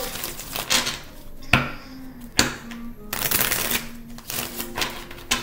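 A deck of tarot cards being shuffled by hand: a run of papery rustling and riffling, with a few sharp snaps of the cards.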